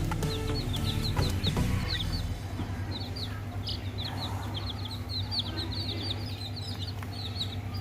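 Chicks peeping: a rapid run of short, high, downward-sliding peeps from several birds, over a steady low hum.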